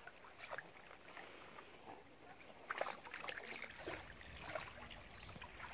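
Faint splashing and sloshing of a dog wading in a shallow, stony stream, with a few soft splashes scattered through, more of them in the second half.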